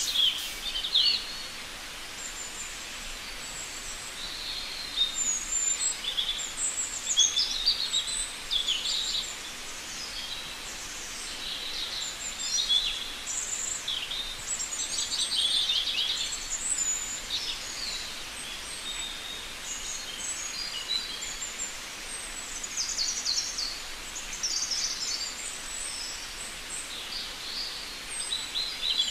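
Small birds chirping and twittering, many short calls and quick trills overlapping and coming and going, over a faint steady background hiss.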